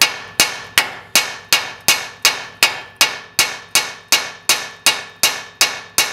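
Hammer striking the steering knuckle around a rusted-in tie rod end stud in a steady rhythm, about three blows a second, each with a short metallic ring. It is shocking loose a tie rod end seized by corrosion.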